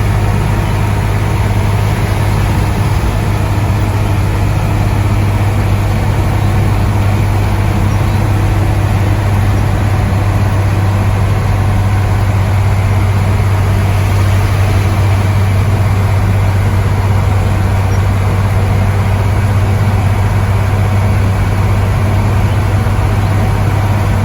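Truck engine running steadily while driving, with a constant low hum and road noise.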